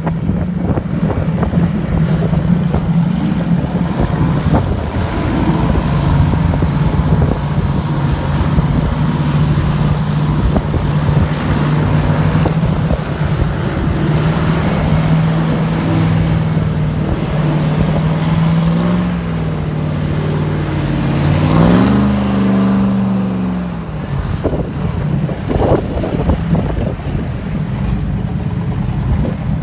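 Airboat engine and big air propeller running steadily, with a rise in pitch and loudness about two-thirds of the way through as it revs up, then falling back.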